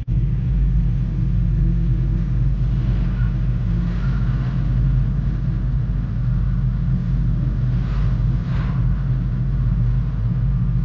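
Car driving on a wet road in the rain: a steady low rumble of road and engine noise.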